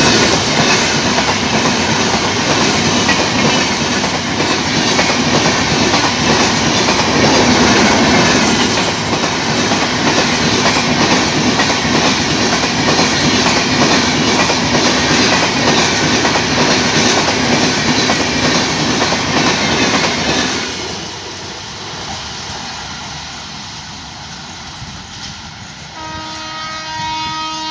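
A train passing close by, a loud, dense rumble and rattle of railcars on the track that drops off sharply about twenty seconds in. Near the end a horn sounds steadily for about two seconds.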